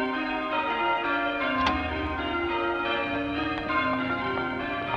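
Church bells change ringing: many bells struck one after another in a steady cascade, each note ringing on and overlapping the next. A low hum joins about a second and a half in.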